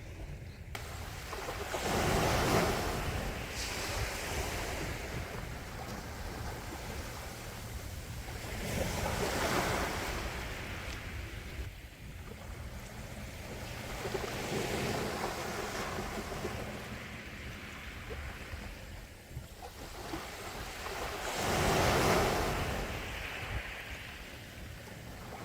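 Calm sea waves washing in, the surf swelling and fading four times every five to seven seconds, with the loudest surge near the end.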